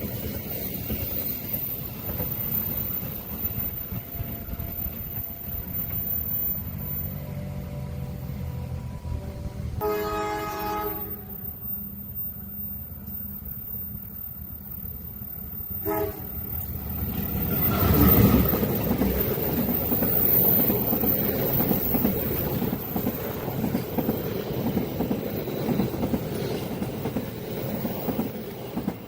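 A train approaches with a low rumble, gives one horn blast of about a second ten seconds in and a short toot about six seconds later, then passes close by. The pass is a loud rumble with a rapid, even clatter of wheels over the rails, which fades just before the end.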